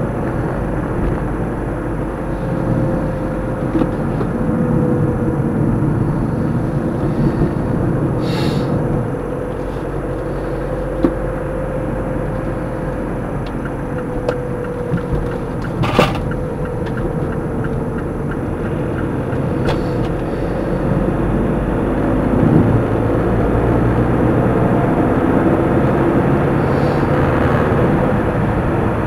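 Steady engine and road noise of a moving car, heard from inside the cabin, with a hum that drifts slightly in pitch. There is a single sharp click about halfway through.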